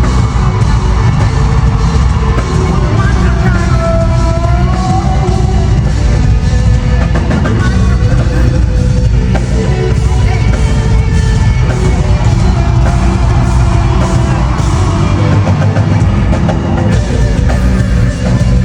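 Loud live rock-style band music in an arena, with a drum kit and heavy bass, and a voice over it. It is loud and dense throughout, as picked up by a phone in the crowd.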